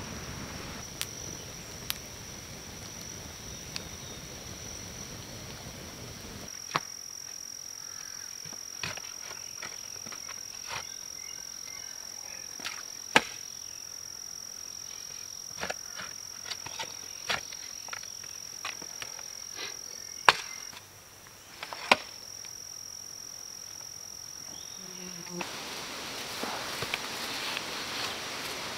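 A campfire crackles, then a digging tool chops into a rocky sand-and-clay bank with sharp, irregular strikes, several of them loud. A steady high insect drone runs underneath. Near the end come softer scraping and rustling as sand is scooped.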